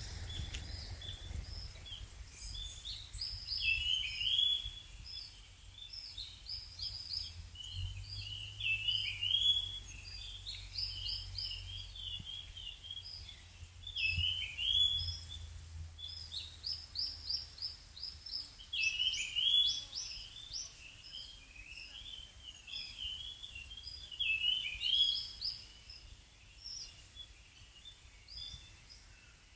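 A small songbird singing: short, quick twittering phrases of high, sliding notes repeated every few seconds, with fainter chirps between them. A low rumble, like wind on the microphone, sits under the first half.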